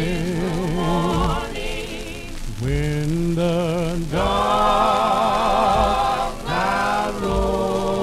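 Gospel vocal group singing held, wavering notes in close harmony, with a lull about two and a half seconds in and a brief break near the end, played from a 78 rpm shellac record with surface crackle.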